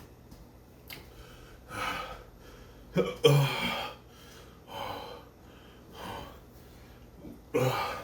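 A man breathing hard and hiccupping while his mouth and throat burn from superhot chili peppers: short, loud breaths every second or so, with the sharpest voiced catches about three seconds in and near the end.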